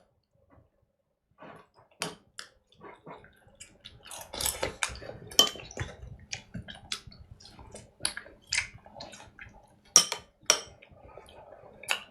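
Dishes and utensils clinking: many short, sharp, irregular clicks and clinks, starting after about a second and a half of quiet.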